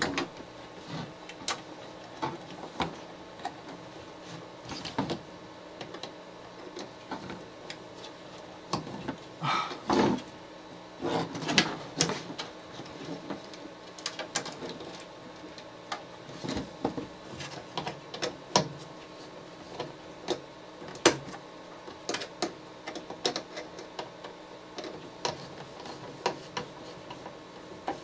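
Irregular small clicks, taps and scrapes of a screwdriver and wire loops being worked onto the screw terminals of a garage door opener's terminal block, as safety-sensor wires are fastened.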